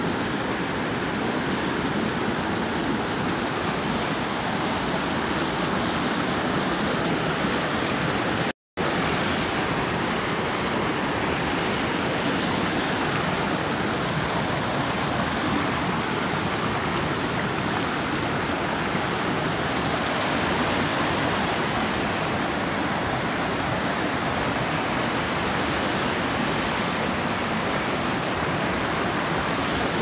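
Waterfall cascading over rock ledges close by: a steady, even rush of water. About eight and a half seconds in, it cuts out to silence for a moment and resumes.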